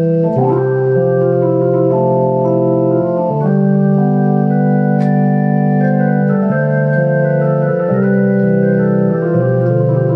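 Hammond T-series home organ with a built-in Leslie speaker being played: held chords that change every second or two over sustained low notes.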